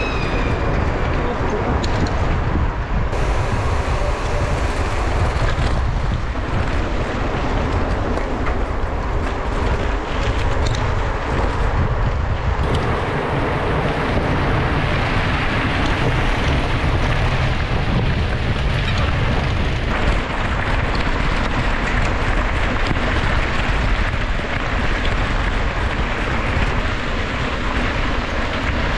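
Steady wind noise on a GoPro action camera's microphone while riding a mountain bike over rough ground.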